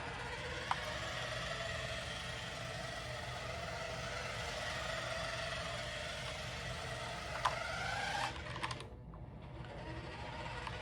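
Small electric drive motor of a Jada Back to the Future remote-control toy car whirring as it drives, its whine wavering a little in pitch. There is a click as it starts, another shortly before it stops, and it cuts out about eight seconds in.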